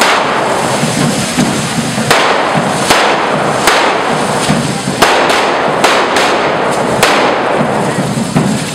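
Devils' hand-held fire fountains (carretilles) hissing continuously and spraying sparks, with sharp firecracker bangs going off every second or so.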